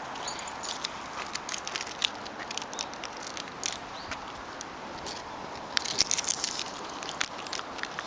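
Irregular light clicks and rustles from two leashed French bulldogs walking on asphalt among fallen leaves, with a denser flurry of clicks about six seconds in.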